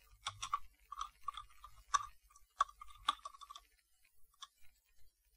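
Computer keyboard keys clicking as code is typed: a run of quick keystrokes that thins out after about three and a half seconds, then a couple of isolated taps.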